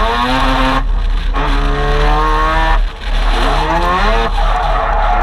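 Semi-peripheral-port Mazda rotary race engine in an RX-7 drift car revving hard under throttle, heard from inside the car, its pitch climbing and falling as the throttle is worked, with brief drops at about one, three and four seconds in.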